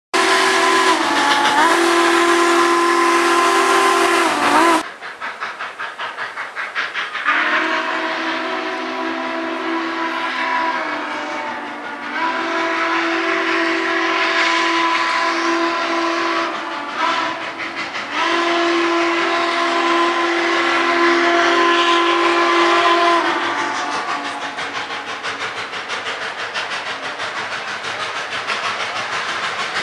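Southern Pacific 4449, a GS-4 steam locomotive, sounds its steam whistle in several long, loud blasts as it runs by, with a steady rhythmic clatter of the moving train beneath. After the last blast, about three-quarters of the way through, only the train's rhythmic clatter goes on.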